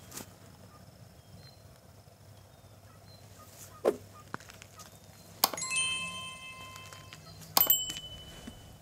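A mouse-style click, then a click with a bright multi-tone chime about halfway through, and another click with a ringing ding near the end. These are the sound effects of a YouTube subscribe-button and notification-bell animation laid over the video.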